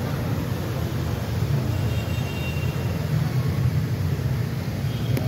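Car's inline four-cylinder petrol engine idling steadily, a low even rumble heard up close in the open engine bay.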